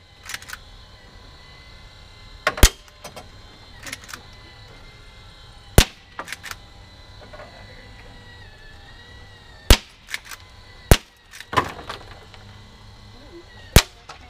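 Walther CO2 lever-action .177 air rifle firing five sharp shots a few seconds apart, each followed by smaller clacks as the pellet strikes and knocks over shooting-gallery targets.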